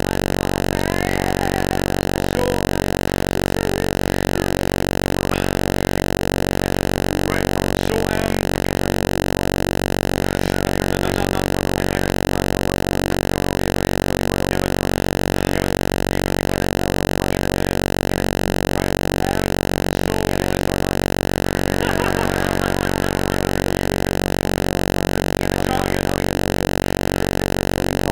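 Loud, steady electrical buzz that does not change in pitch or level, with a few faint clicks and distant voices showing through now and then.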